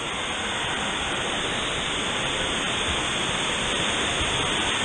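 Steady rush of running and splashing water, an even hiss that grows slightly louder.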